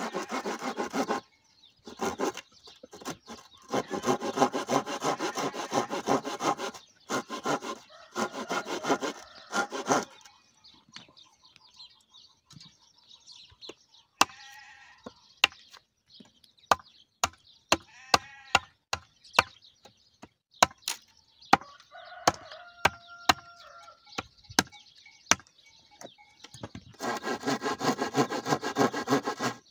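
Hand tools cutting into a pumice concrete building block: long bursts of rapid scraping strokes, and in the middle a run of separate sharp taps, roughly one or two a second, as the block is chipped with a hammer and pointed tool. An animal calls briefly a couple of times during the tapping.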